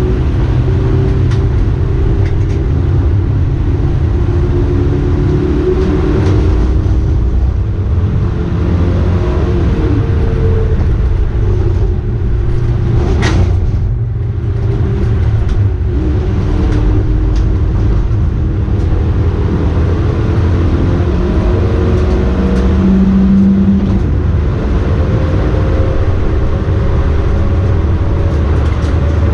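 Dacia Logan race car's engine heard from inside the cockpit, rising and falling in pitch as it is revved up and shifted through the gears, over a heavy low rumble of road and tyre noise. A single sharp click or knock comes about halfway through.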